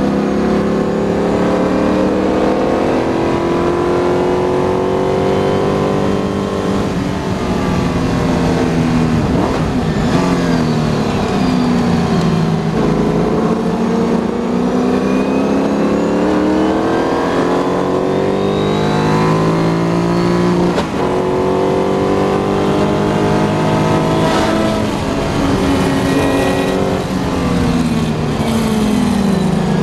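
Onboard sound of a McLaren M10B Formula 5000 car's 5-litre V8 at racing speed: the engine note repeatedly climbs in pitch under acceleration, breaks at gear changes, and falls away when it slows for corners.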